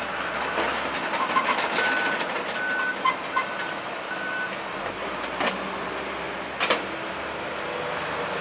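Heavy construction machinery running steadily, with a reversing alarm beeping about five times in the first half and a few sharp knocks scattered through.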